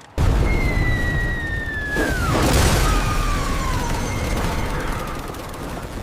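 Cartoon sound effects: a descending whistle that drops steeply about two seconds in, then an explosion boom with a low rumble, and a second shorter falling whistle afterward.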